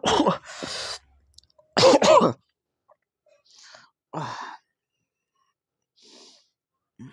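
A man's sharp, explosive vocal outbursts, two loud ones in the first two seconds, then fainter breathy gasps and exhales: his reaction after gulping neat vodka.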